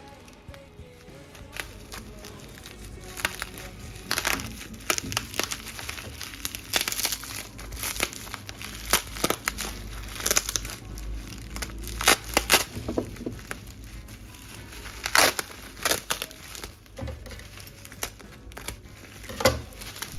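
Crinkling and rustling of a small product box's packaging being handled and opened, in irregular crackles and scrapes.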